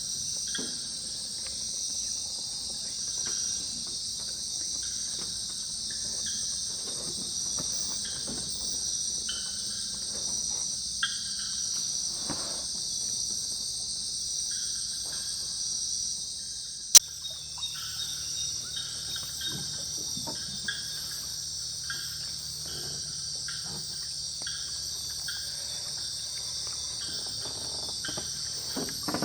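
Night chorus of crickets and other insects: a dense, high-pitched trill that keeps going, with shorter chirps lower down. A single sharp click a little over halfway through, after which the chorus abruptly changes its pattern.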